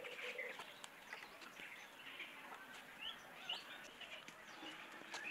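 Birds chirping faintly, with short scattered calls, some rising quickly in pitch, and a few light clicks.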